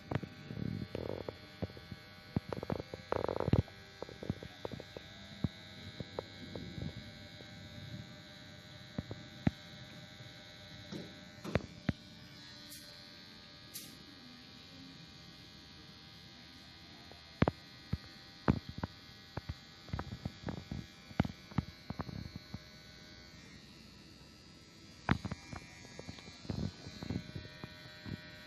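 Kemei KM-2850 electric hair clipper running with a steady hum while cutting hair, with many irregular clicks and crackles on top.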